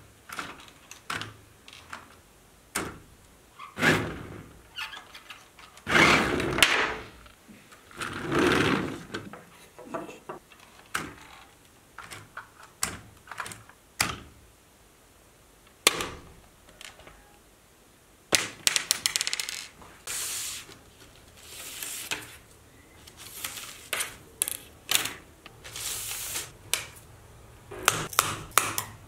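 Toy remote-controlled car's small electric motor whirring in short bursts, among clicks and knocks on a tabletop. Near the end, wooden skewers knock and clatter on the table.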